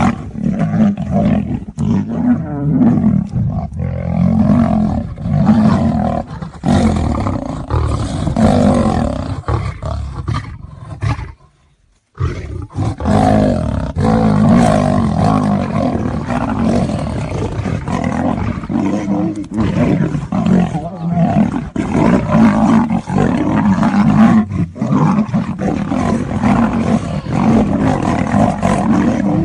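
A lion and a tiger roaring continuously as they fight, with a short break of near silence about eleven seconds in.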